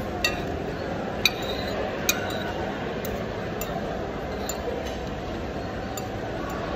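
Metal spoon and fork clinking and scraping against a plate while eating, three sharper clinks in the first two seconds and lighter ticks after, over steady background noise.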